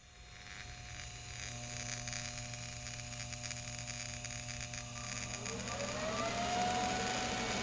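TIG welding arc putting a tack weld on a pilot bearing collet: a steady electrical hum and buzz with a hiss that slowly grows louder. About five seconds in, a whine rises in pitch and levels off.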